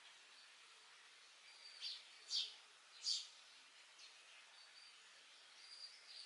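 A few short, sharp bird chirps, the loudest about two and three seconds in, over a faint steady outdoor hiss.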